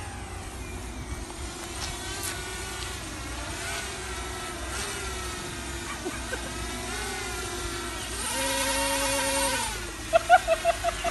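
Small quadcopter drone hovering close by, its propellers whining with a pitch that drifts up and down as it holds position under hand-gesture control, growing louder and steadier for a couple of seconds near the end. A quick run of short high chirps closes the window.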